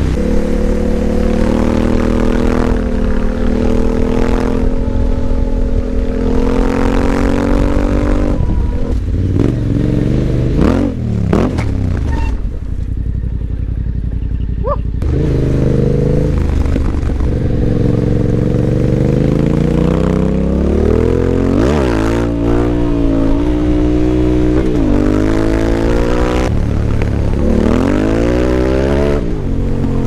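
Yamaha Ténéré 700's parallel-twin engine through an Akrapovič exhaust, heard from the rider's seat while riding. It repeatedly revs up and drops back at each gear change, settles into a quieter, lower-revving stretch about halfway through, then pulls hard up through the gears again.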